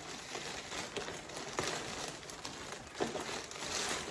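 Plastic packaging crinkling and rustling as it is handled, with a few sharp handling knocks.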